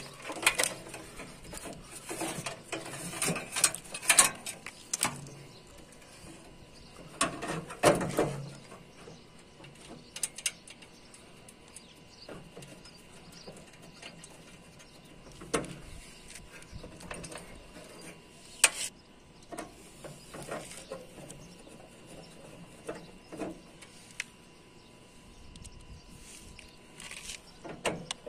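Hand work on a split air conditioner's outdoor unit while its fan motor is replaced: irregular clicks, knocks and rattles of tools and metal parts, busiest in the first few seconds and again about seven to eight seconds in, then sparser.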